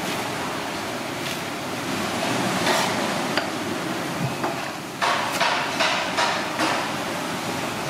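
Cleaver chopping napa cabbage on a wooden chopping block. A few light knocks come first, then from about five seconds in a quick run of knocks, roughly three a second, over a steady background hiss.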